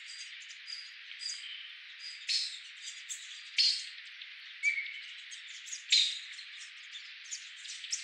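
Forest ambience: small birds chirping in many short, sharp calls, a few of them louder, over a steady high hiss.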